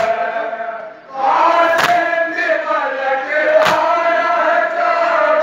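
Crowd of men chanting a Shia mourning lament (nauha) in unison, with a sharp collective slap about every two seconds: chest-beating (matam) in time with the chant. The chant drops briefly about a second in, then comes back in full.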